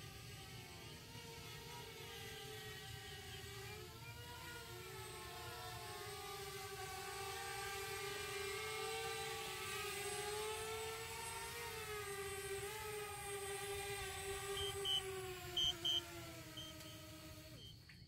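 DJI Spark quadcopter, fitted with prop guards, hovering and descending to land: its propellers hum with a wavering pitch that grows louder as it comes down. Near the end a few short high beeps sound, then the hum drops in pitch and stops as the motors spin down.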